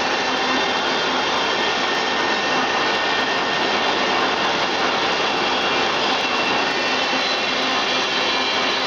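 Rice processing machine running steadily: a continuous even whirring rush of motor, fan and grain flow, with a few faint steady hums underneath.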